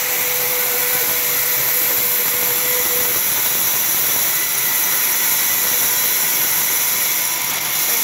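Sawmill band saw running and ripping lengthwise through a large squared log: a steady loud hiss, with a faint whine that stops about three seconds in.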